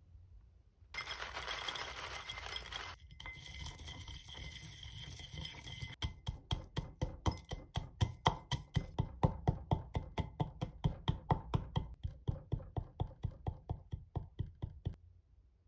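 Dried chickpea flakes clattering into a ceramic mortar, then pounded with a wooden pestle in quick, even strokes, about four a second, crunching as they are crushed toward powder; the pounding stops near the end.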